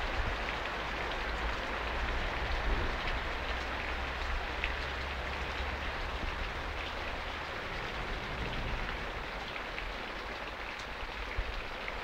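Steady rain during a thunderstorm, with many small scattered drop ticks over an even hiss and a low rumble underneath.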